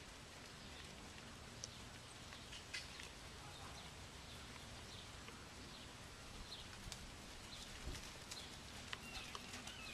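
Faint outdoor ambience: a Selle Français horse trotting on a sand arena, its hoofbeats soft. There are small clicks throughout and a few short bird chirps.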